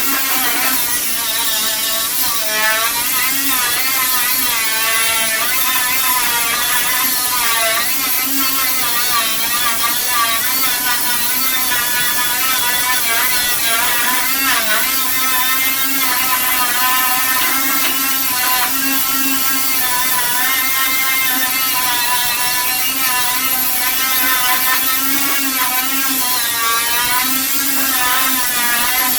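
Bondo Buster abrasive-drum stripping tool running continuously against the truck's body panel, its pitch wavering up and down as the load changes.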